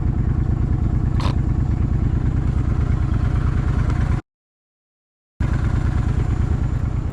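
Motorcycle engine running steadily at idle, with a fast, even beat. About four seconds in, the sound cuts out to total silence for just over a second, then the idle carries on.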